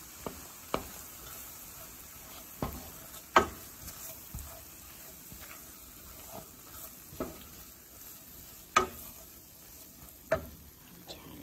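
Wooden spoon stirring flour into butter and onions in a pan, the roux sizzling gently, with a few sharp knocks of the spoon against the pan, the loudest about three and a half seconds in.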